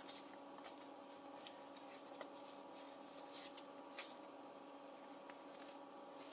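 Faint rustling and a few brief flicks of paper dollar bills being handled and counted, over a low steady hum.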